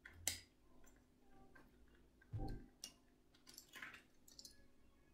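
A few faint, scattered clicks and ticks of plastic construction bricks being handled and pressed onto a model section.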